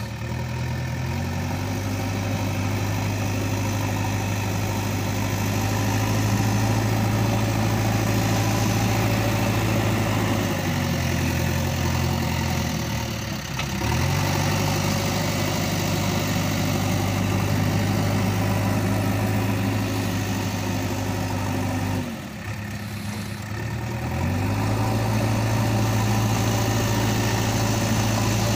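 An engine idling steadily, twice dropping in pitch and then climbing back up, about halfway through and again near three quarters of the way.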